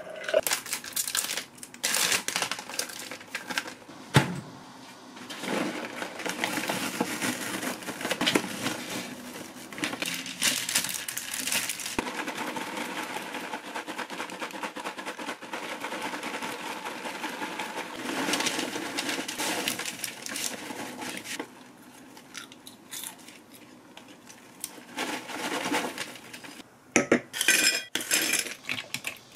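A few sharp clinks, then a long stretch of a paper popcorn bag being shaken hard, its contents rattling and the paper rustling. Near the end, ice cubes clink sharply as they drop into a glass.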